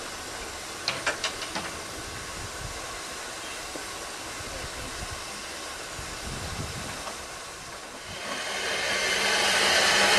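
Manning Wardle 2-6-2T narrow-gauge steam locomotive standing with steam up. A quick run of five sharp clinks comes about a second in. From about eight seconds in a loud steam hiss swells up and holds.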